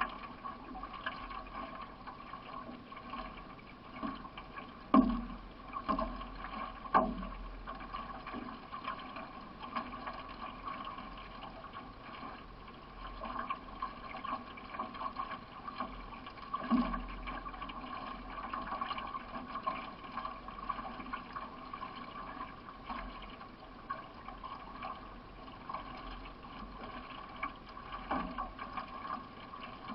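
Solo racing canoe under way: paddle strokes and water washing along the hull, with a few sharper knocks.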